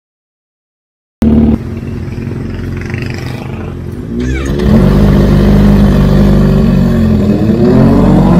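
Kawasaki Z H2's supercharged inline-four through an SC Project exhaust, cutting in suddenly about a second in, then running and rising in pitch as it revs about four seconds in, and climbing steadily in pitch again near the end as it accelerates.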